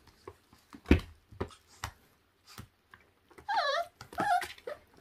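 Feral-dog puppy, about four weeks old, whimpering in two high, wavering whines about three and a half and four seconds in. Before them come a few sharp clicks of claws scrabbling on a plastic basket as the excited puppy tries to climb out.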